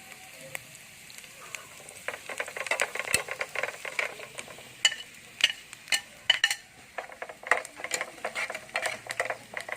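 A utensil stirring and scraping food in a frying pan, with many irregular clinks and taps over a faint sizzle.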